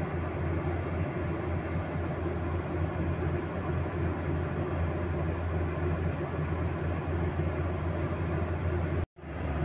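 Boeing 737-800 cabin noise in cruise beside the wing: a steady low drone from its CFM56-7B turbofan engines. The sound cuts out for a moment near the end.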